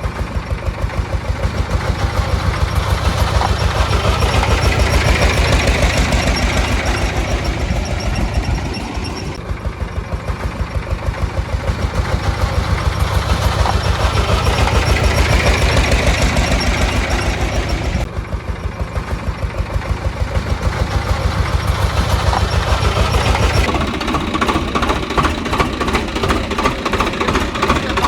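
Tractor engine running with a steady, even knocking beat that swells and eases in a repeating cycle; in the last few seconds it changes to a thinner, sharper knock.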